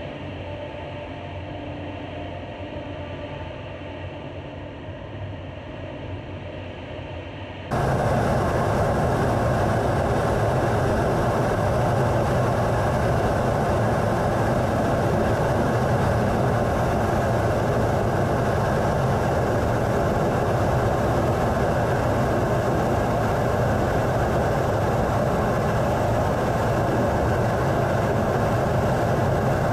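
Steady in-flight noise of a jet aircraft, at first duller and quieter, then about eight seconds in it jumps abruptly to a louder, fuller rush of airflow and engine heard inside a Rafale fighter's cockpit canopy.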